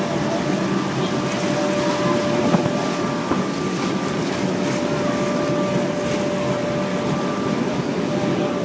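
Steady machine drone with a constant hum, like a motor running without a break.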